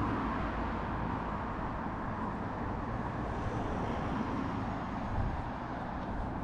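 Steady road-vehicle noise: a low engine rumble under a continuous hiss of tyres and traffic.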